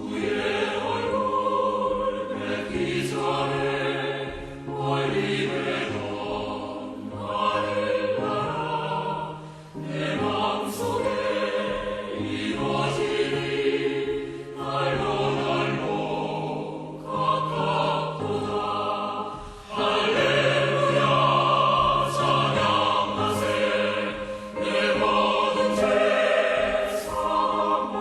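Choral music: many voices singing sustained chords over held bass notes, with short pauses between phrases.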